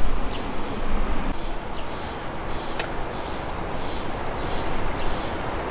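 Wind blowing through pine trees and over the microphone, a steady rushing that is heavier and more gusty for the first second or so. Over it, a high chirping call repeats at a fairly even rhythm, about twice a second.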